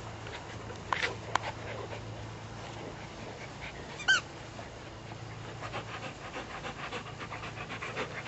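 Gordon setters panting while they play, with one short whine about four seconds in.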